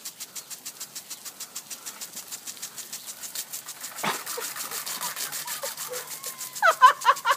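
Lawn impact sprinkler ticking rapidly, about seven ticks a second, as it sprays water, with the hiss of spray louder from about halfway through. Near the end a toddler cries out as the spray reaches her.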